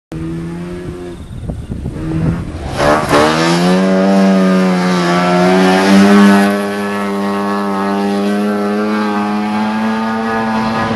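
Competition car engine running at low revs, then revved hard about three seconds in as the car sets off. The revs climb quickly and then hold high and steady, loudest around six seconds.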